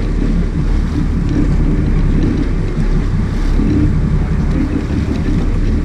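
Sport-fishing boat's engine running steadily, with wind rumbling on the microphone.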